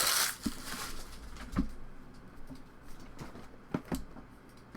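Plastic card-pack wrapper crinkling briefly at the start, then a few scattered light taps and rubs of trading cards being handled.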